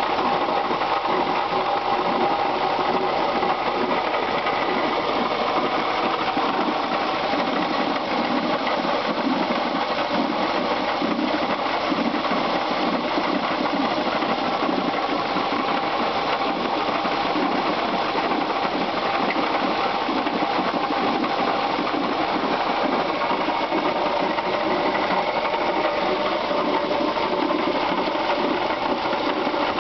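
1996 Subaru Outback's 2.5-litre flat-four engine running steadily with a fast, even knocking clatter, which the owner puts down to a bad water pump.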